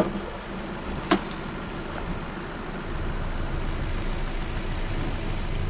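Honda Civic's engine idling steadily, with a single sharp click about a second in.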